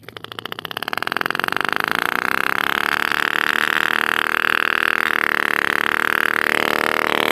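Tiny two-stroke nitro glow-plug engine of a homemade miniature RC car catching and running. Rapid pops quicken and grow louder over the first second or so, then settle into a steady, high-pitched run.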